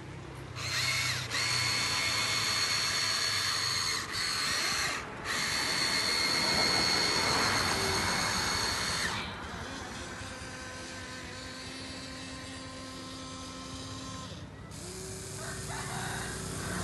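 Electric gear motors of a Huina radio-controlled excavator whining as its arm, tracks and turntable move. The motors start and stop several times with short breaks, and after about nine seconds the whine turns quieter and lower.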